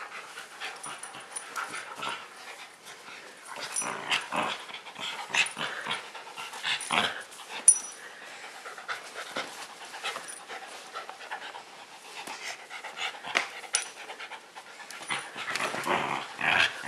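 Husky puppy panting in irregular bursts as it rubs against a person's legs, with a sharp metallic clink from its collar tag about eight seconds in.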